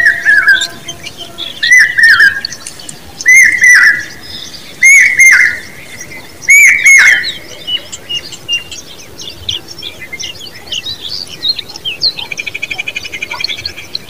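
Common babbler calling at its nest: five loud, harsh arched calls about a second and a half apart, then softer scattered chirps and a fast buzzy trill near the end.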